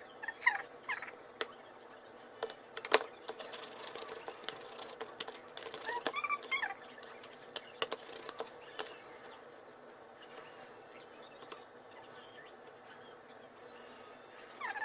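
A dog whining briefly about six seconds in, among scattered soft clicks and one sharper click about three seconds in.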